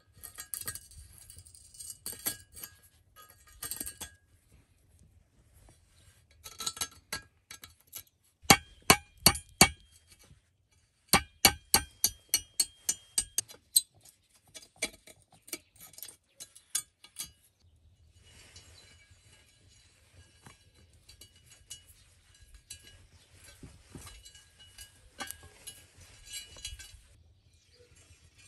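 Sharp metal-on-metal strikes ringing off a rusty steel angle-iron frame as a nail is worked through a hole in it: a few blows, then a quicker run of about ten at roughly four a second. Quieter scratching and rustling of metal and wire follows.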